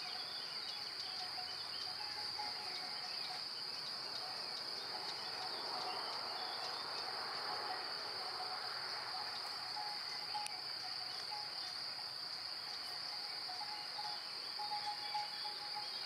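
Meadow insects chirring in one steady high-pitched drone, with faint short tones coming and going underneath.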